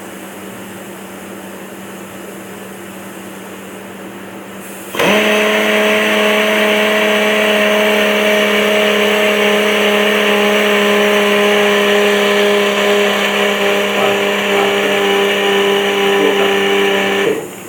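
Atlas Copco pneumatic drilling machine starting about five seconds in and running at a steady speed for about twelve seconds, a steady air-motor whine over a loud air hiss, then cutting off suddenly. A faint steady hum sounds before it starts and after it stops.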